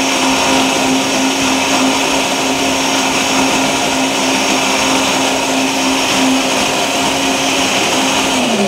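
Countertop electric blender running steadily, blending beetroot with water, with a constant motor hum over the whirring of the liquid. Its pitch drops at the very end as the motor winds down.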